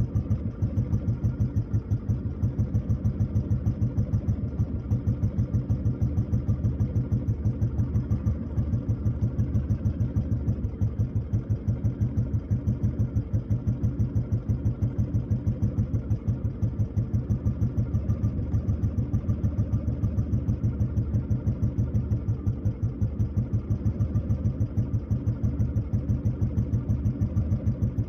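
A Royal Enfield Bullet 500's single-cylinder four-stroke engine idling, a slow, even thumping beat that holds steady throughout.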